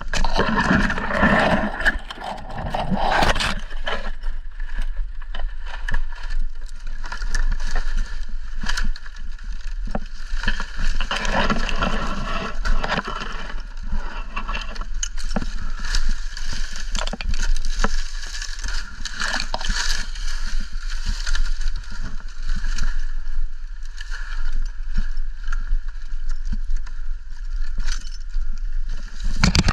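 Wind buffeting the microphone in gusts, over irregular rustling and scraping of dry palm fronds.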